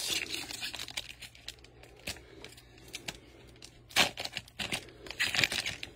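Shiny plastic wrapper of a Panini Select trading-card pack being torn open and crinkled. There is a sharp crackle about four seconds in and a busier run of crinkling near the end.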